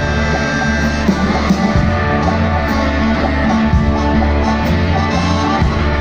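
Blues band playing live, with guitars, keyboard and drums over a steady beat.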